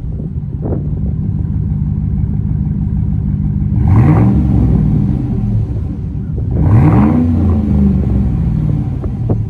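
Chevy Silverado's 5.3-litre V8 running through a Flowmaster Outlaw cat-back exhaust while driving, a steady drone with two louder throttle pulls about four and seven seconds in, each rising in pitch and then falling away.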